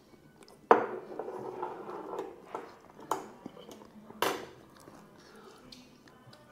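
A metal fork clinking and scraping on a plate and bowl of chips: a sharp clink about a second in followed by a scrape, then a few single clinks.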